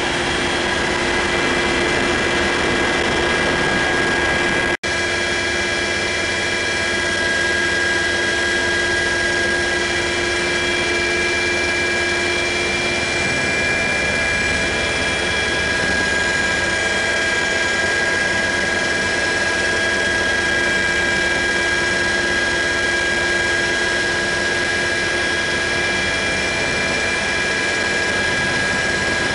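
Steady cabin noise of a UH-60 Black Hawk helicopter in flight: dense rotor and turbine noise with several steady high-pitched whines over it. The sound cuts out for an instant about five seconds in.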